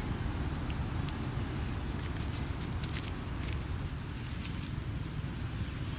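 Dry leaf litter crackling a few times about two to four and a half seconds in as young monkeys move and forage on it, over a steady low rumble.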